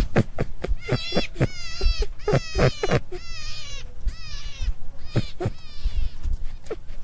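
Rabbit squealing: runs of short, high-pitched squeaks, each falling in pitch, coming in quick clusters, with many soft knocks in between.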